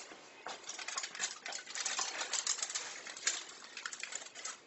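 Aluminium foil crinkling and rustling in quick irregular crackles as a foil papillote is handled and unfolded.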